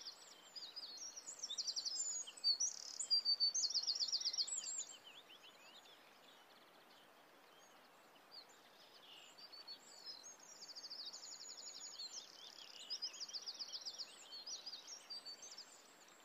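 Birdsong: small birds singing rapid trills and chirps over a steady background hiss. The singing is busiest in the first few seconds, thins out in the middle and picks up again toward the end.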